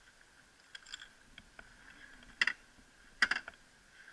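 A few short crunches and scuffs of boots on loose gravel: a small one about a second in, a louder one near the middle and a quick cluster a little past three seconds.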